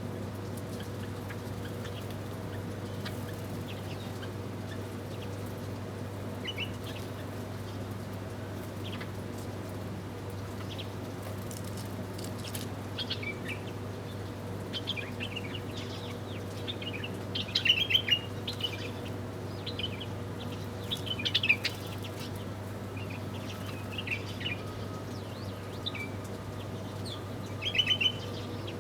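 Small birds chirping in short, scattered high calls, with three louder bunches of chirps in the second half, over a steady low hum.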